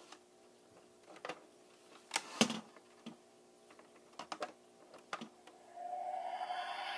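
Light plastic clicks and knocks as the Diamond Select Toys Enterprise-D model is handled and set back on its stand, the loudest a clunk about two and a half seconds in. Near the end the toy's built-in speaker starts a steady electronic sound effect with a held tone.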